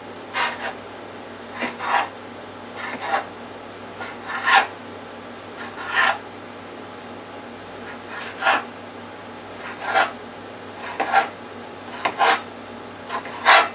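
Chef's knife cutting raw haddock fillet into chunks: each cut is a short scrape and knock of the blade against the cutting surface. The cuts come about once a second, many as a quick double stroke.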